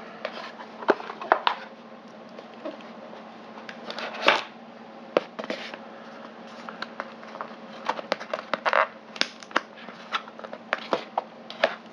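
Hands handling cardboard packaging: irregular scrapes, taps and rustles of the box's inner cardboard pieces being moved and pulled out.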